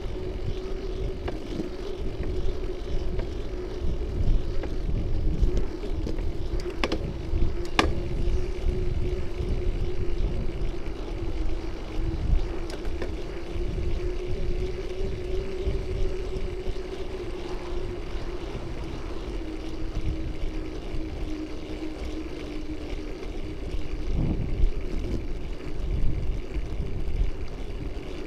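Bicycle riding on a paved road, heard through a bike-mounted camera: low rumble from wind and road vibration, with a faint steady hum that slowly shifts in pitch. Two sharp clicks come about seven and eight seconds in.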